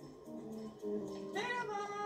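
Soundtrack music from a television, with a held female singing voice whose pitch slides slightly downward in the second half, between lines of dialogue.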